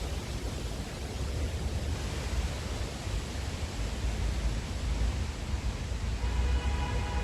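Wind blowing on the microphone, a steady rushing hiss with a low rumble. About six seconds in, a steady whine of several tones joins it.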